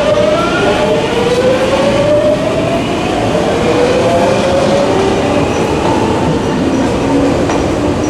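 A Tokyu Oimachi Line electric train braking into the station: its VVVF inverter whines in several tones that glide steadily downward as it slows, over the rumble of wheels on rail. A faint high squeal comes in near the end.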